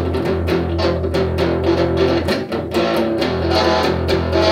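Stratocaster-style electric guitar playing the instrumental intro of a blues-rock song, over a strong low end and a steady beat.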